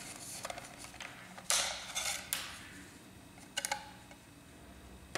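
Handling sounds as a laser printer's fuser film sleeve is slid off its heating element: a short rustling scrape about a second and a half in, then a few sharp clicks and taps.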